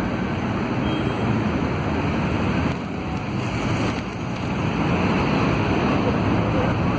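Steady street-traffic rumble with wind rushing on the microphone, dipping slightly in loudness midway.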